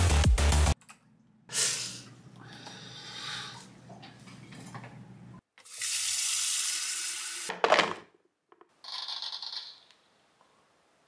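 Water running in short spells, as from a tap, with a sharp loud knock about eight seconds in and a brief high hiss after it.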